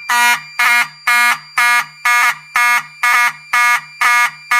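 Wheelock 7002T-24 fire alarm horn/strobe sounding in march time: short, loud, buzzy horn blasts repeating evenly at about two per second (120 per minute). The pattern is set by a Potter PFC-6006 fire alarm panel in general alarm.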